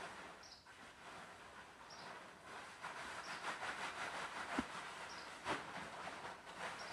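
Large plastic tarpaulin rustling and crackling as it is spread and slid over a horse's back, with a couple of soft knocks about halfway through.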